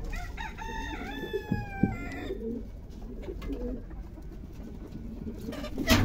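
A rooster crowing once, one long drawn-out call over the first two seconds. A sharp knock near the end.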